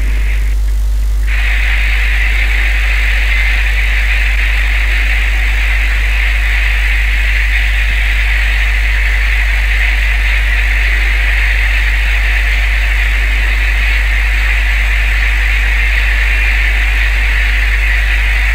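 Boat engine running steadily, heard from on board: a constant low drone under a hissing rush. The hiss drops out for about a second near the start.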